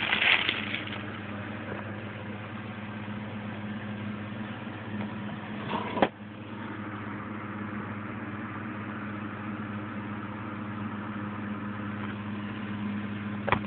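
A steady low hum over a faint hiss, with one sharp click about six seconds in and a couple of light clicks near the end.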